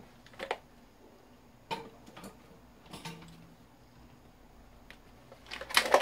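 Scattered clicks and knocks of a screwdriver and the hard plastic housing of a wall-fan motor being handled during disassembly, with a louder clatter of knocks near the end.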